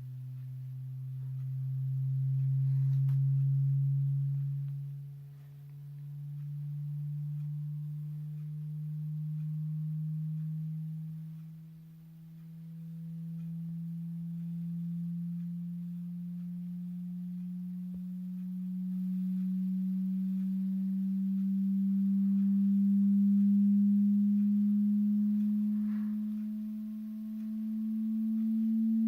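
Hearing-test sine tone, a low pure tone slowly rising in pitch throughout, swelling and fading in loudness every few seconds.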